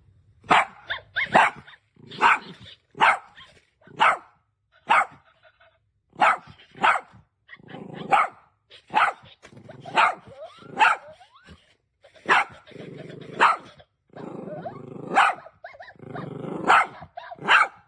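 Dwi Dowellin robot dog toy barking through its built-in speaker: a long string of short, sharp barks, about one a second. In the second half, rougher sustained sounds fill the gaps between some barks.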